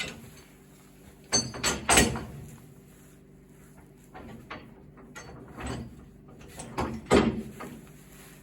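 Irregular metallic clanks and rattles from tie-down chains and hardware being handled while securing an excavator on a trailer. There is a cluster of loud knocks a little under two seconds in and another just after seven seconds, with lighter clinks between.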